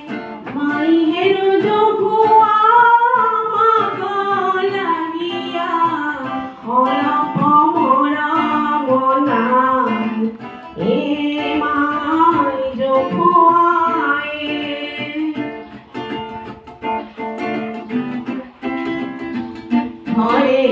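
A woman singing a song in long held, bending notes to a strummed acoustic guitar.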